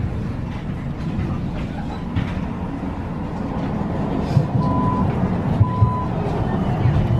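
Tram riding along its rails, heard from inside the car: a steady low rumble from the running gear with scattered knocks. Past the middle come two short electronic beeps about a second apart.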